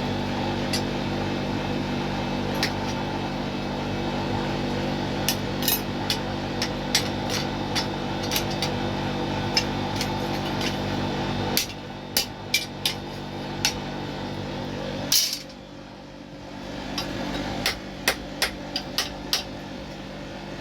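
Irregular hammer taps on metal, a couple of dozen sharp strikes spread through, over a steady machine hum. The hum drops partway through and fades after one louder strike, then comes back near the end.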